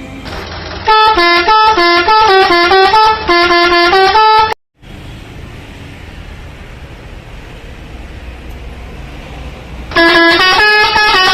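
Multi-tone 'telolet' air horn of an Indonesian truck playing its quick stepping tune, about three and a half seconds long; after a short cut-out there is a steady noise, and the tune starts again near the end.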